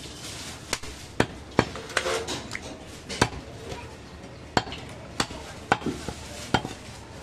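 Butcher's cleaver chopping goat meat on a thick wooden log block: about nine sharp chops at an uneven pace.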